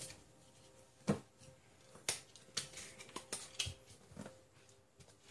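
Quiet room with about six light clicks and taps from hands handling cards and packs, spread irregularly over a few seconds; the sharpest comes about a second in.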